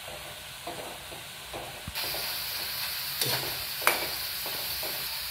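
Shoestring potato chips deep-frying in hot oil in a steel kadai, a steady sizzle that gets louder about two seconds in, while a metal skimmer stirs them and knocks against the pan twice. The chips are nearly cooked crisp, the stage at which the cook expects the frying noise to settle.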